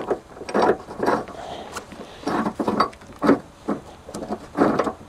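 Scattered short knocks, clinks and rustles of hand-worked hardware as a bow shackle's pin is threaded through a recovery rope loop and a car's tow loop.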